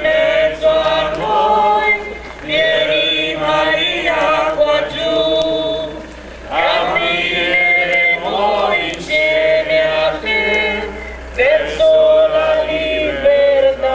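A procession's hymn sung by a group of voices, slow phrases of long held notes with short breaks between them.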